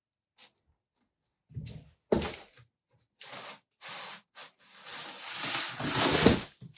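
Cardboard box and packaging being handled: a few short rustles and knocks, then a longer, louder scraping rustle about five seconds in.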